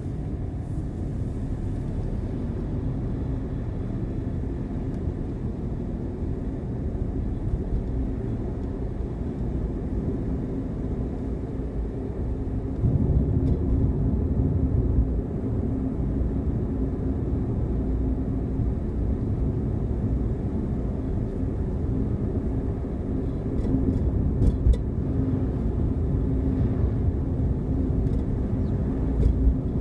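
Car driving along a road: a steady low rumble of engine and tyre noise with a faint constant hum, growing louder about 13 seconds in.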